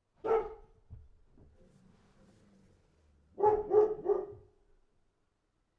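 A dog barking: one bark, then about three seconds later three quick barks in a row.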